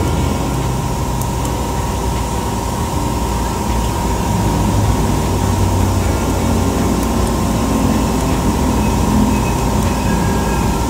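Running machinery: a steady low rumble with a constant whine over it.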